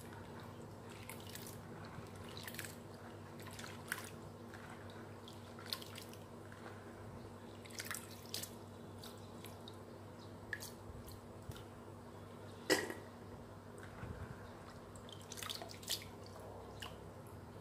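Hands rinsing sliced figs in a basin of water and lifting them out, with drips and small splashes now and then and a sharper knock about thirteen seconds in. A low steady hum runs underneath.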